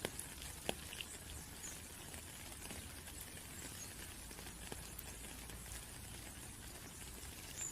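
Light rain falling: a steady soft hiss with a few separate drops ticking, the clearest a little under a second in.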